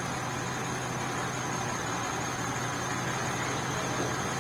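Steady low engine hum, like a vehicle idling, with an even background hiss and a faint constant high whine.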